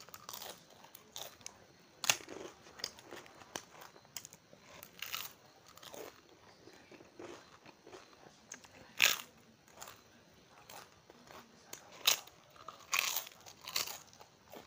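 Crisp fried wafers being bitten and chewed, a sharp crunch every second or few seconds with softer chewing between; the loudest bites come about 2, 9 and 12 seconds in.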